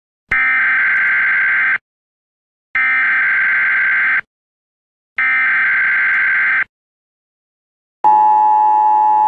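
Emergency Alert System tones: three bursts of SAME header data, each a buzzy digital warble about a second and a half long with about a second of silence between them. Near the end the steady two-tone EAS attention signal begins.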